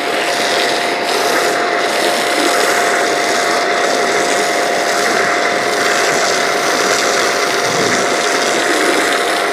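Shakti S3 electric pressure washer running with a steady hum while its foam can sprays shampoo foam onto a car with a constant hiss.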